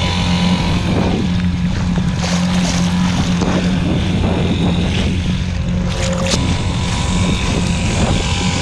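Small boat's motor running steadily with a constant low hum, wind buffeting the microphone, and a brief rush of noise about six seconds in.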